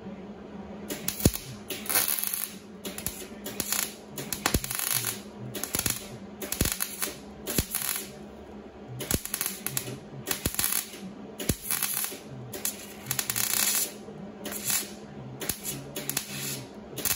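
MIG welder laying short stitch or tack welds on truck body sheet metal: about fifteen crackling bursts, each under a second, with short pauses between.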